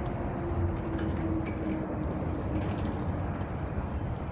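Steady low drone of distant motor traffic, with one engine's faint tone slowly falling in pitch as it passes.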